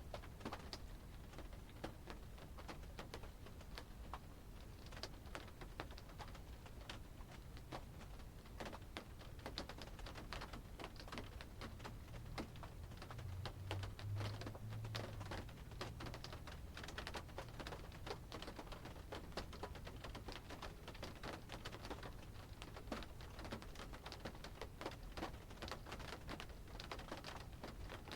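Rain heard from inside a car: many irregular small drops tapping on the roof and glass, over a low steady rumble that swells a little about halfway through.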